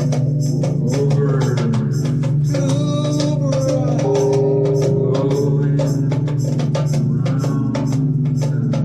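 Music: rapid hand-drum and percussion strokes over a steady low drone and held tones.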